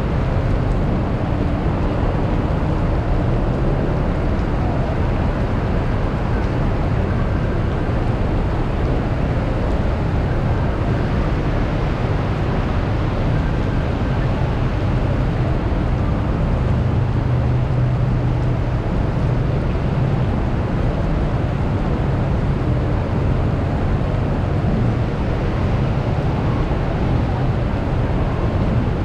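Heavy rain falling steadily: a dense, even rush with a strong low rumble underneath.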